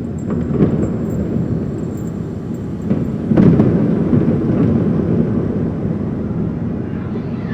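A deep, continuous rumble from a haunted-house horror sound effect. A heavier rumbling hit breaks in about three seconds in and slowly dies back into the rumble.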